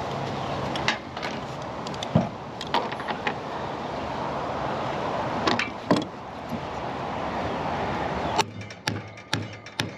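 A power tool runs steadily for about eight seconds, with a few sharp clicks over it, then stops suddenly. Several sharp knocks and clatters of hardware follow.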